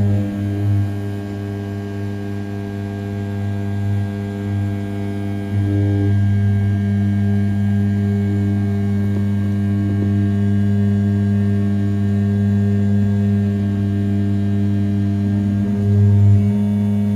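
The 500 W brushless spindle of an Original Mind RZ420 desktop CNC mill running at 6000 rpm while an end mill makes a finishing pass around the outside of an A7075 aluminium part. It is a steady hum with a deeper tone under it, grows louder about five and a half seconds in, and swells briefly near the end.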